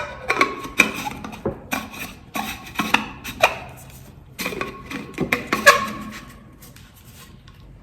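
A small water bottle being handled and opened: a quick series of clicks and light knocks from its cap and parts, some with a brief ring, stopping about six seconds in.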